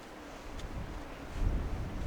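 Wind buffeting the microphone, a low rumble that gusts up about halfway through, with a few faint ticks.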